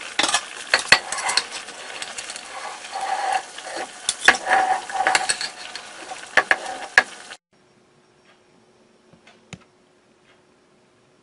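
A metal ladle clinks and scrapes against a clay pot and a ceramic bowl as chunks of beef curry stew are served out, with a sizzling, bubbling hiss underneath. About seven seconds in, the sound cuts off abruptly to a quiet room with a faint steady hum and a few soft ticks.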